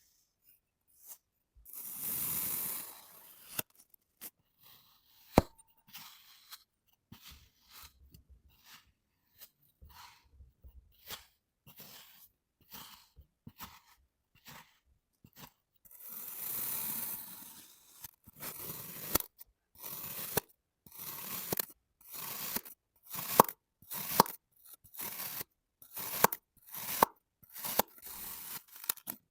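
Knife slicing through kinetic sand with a crumbly, crunching sound. There are two longer drawn-out cuts, then a run of short slicing strokes about twice a second in the last third. A single sharp click comes about five seconds in.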